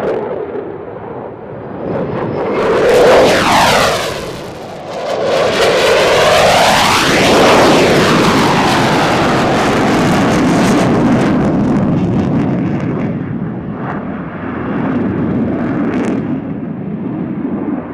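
F-16 fighter jet's engine at takeoff power passing by, a loud rushing jet noise with a sweeping, phasing quality. It swells briefly about three seconds in, is loudest from about five to eleven seconds, then eases off.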